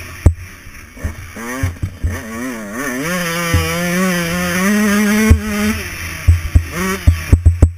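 Dirt bike engine revving up and falling back repeatedly while ridden hard over rough ground. Wind rumbles on the microphone, and short knocks from bumps come several at a time near the end.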